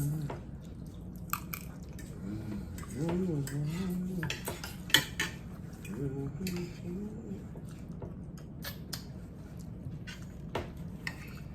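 Metal cutlery clinking and scraping against plates during a meal, in scattered sharp clicks, with a low murmuring voice twice in the middle.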